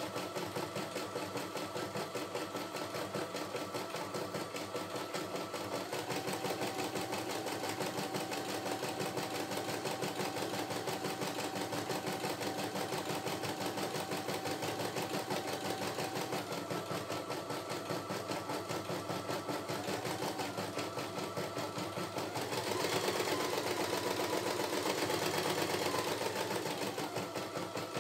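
CNY E960 computerized embroidery machine stitching a design on its hoop during a test run: a fast, steady chatter of needle strokes over the hum of its motors. The hum changes pitch several times and grows louder for a few seconds near the end.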